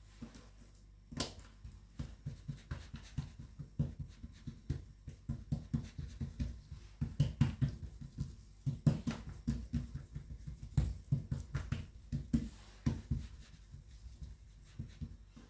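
Hands pressing and patting a round of dough flat on a countertop: a run of soft, dull pats, a few a second, with a few sharper taps.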